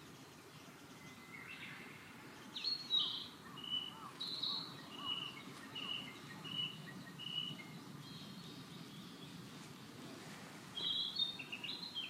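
A songbird calling: a few chirps, then a run of about six short, evenly spaced high notes, and another cluster of chirps near the end, over steady outdoor background noise.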